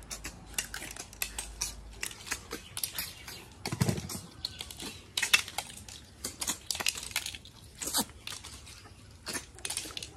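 Cooked snail shells clicking on steel plates as several people pick them up and suck and chew the snails out of them: an irregular run of short sharp clicks and crunches.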